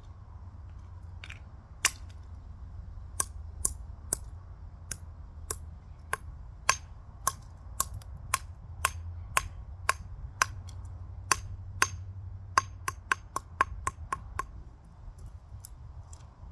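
A small plastic remote control being struck over and over, a string of sharp knocks about once or twice a second that come quicker toward the end, then stop. A low steady hum lies underneath.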